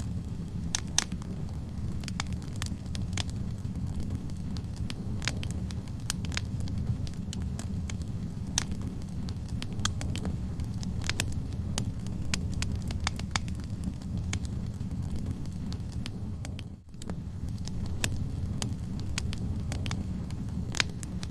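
Wood fire burning in a fireplace: a steady low rumble of flame with irregular sharp crackles and pops from the burning logs. The sound dips briefly once, about three-quarters of the way through.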